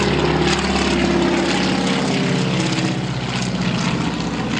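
Crop duster's engine and propeller droning steadily as the plane flies low overhead, easing slightly down in pitch about halfway through as it passes.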